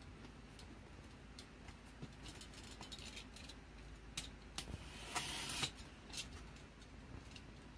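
Snap-off box cutter slitting the packing tape on a cardboard box, with light clicks and taps of the box being handled; one scratchy cut of a little over half a second about five seconds in is the loudest sound.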